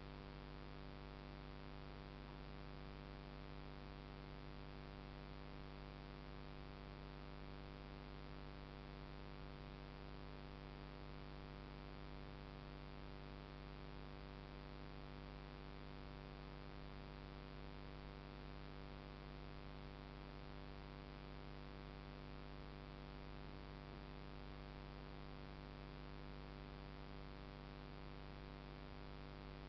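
Faint steady electrical hum with a stack of even overtones over a light hiss, unchanging throughout, with no other sound.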